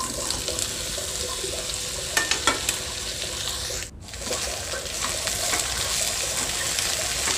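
Chopped okra sizzling in a little hot oil in a non-stick kadai, stirred with a spatula that taps and scrapes the pan. The sound dips out briefly about four seconds in.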